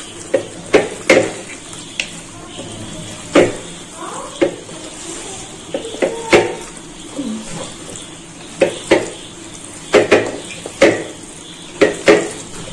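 Chicken pieces being mixed with spice masala in a metal vessel: irregular clinks and knocks against the pot, some ringing briefly, about one or two a second.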